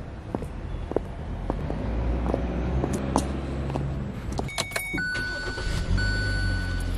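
Keys jangling and scattered clicks over a low engine hum. From about four and a half seconds a steady electronic tone sounds inside a car, stepping down in pitch about half a second later.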